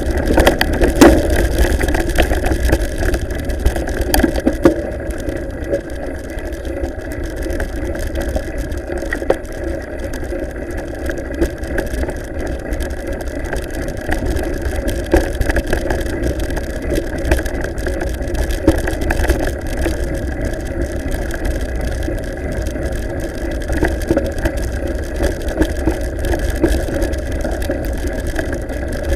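Mountain bike rolling over a stony gravel track: wind rumbling on the bike-mounted camera's microphone and a steady rolling hum, with scattered rattles and knocks from the bike and camera mount, busiest in the first five seconds.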